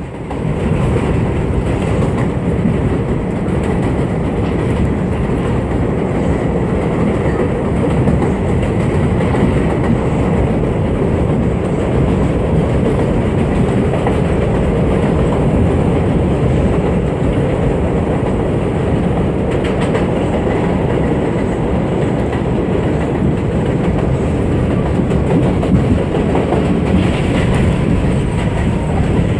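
New York City Subway 4 train running on elevated track, heard from inside the car: a loud, steady rumble of wheels and car body that builds up over the first second, then holds.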